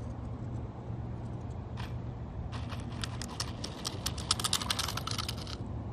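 Gravel crunching: a dense, irregular run of small sharp clicks starting about two and a half seconds in and stopping shortly before the end, over a steady low hum.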